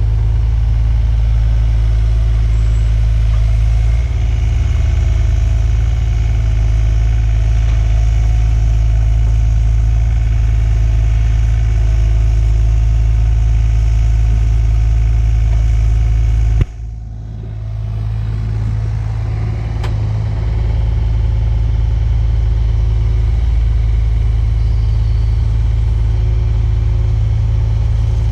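Mini excavator's diesel engine running steadily with a deep, even drone. There is a sudden dip about seventeen seconds in before the drone carries on.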